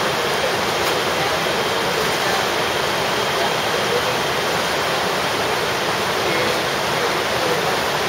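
Rushing water flowing over rocks, a steady, even rush.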